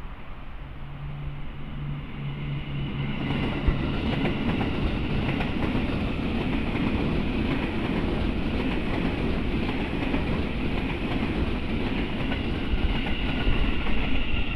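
KRL Commuter Line electric multiple unit passing at speed close by. Its rumble and rail noise build as it draws near, and about three to four seconds in it turns into a steady loud rush of wheels on rail as the carriages go by.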